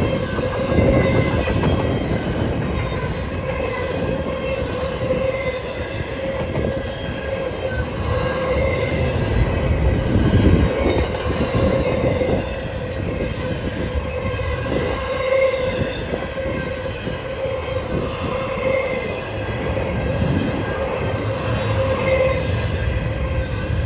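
Long CSX freight train's cars rolling past with a steady rumble and a sustained, wavering wheel squeal, with wind buffeting the microphone.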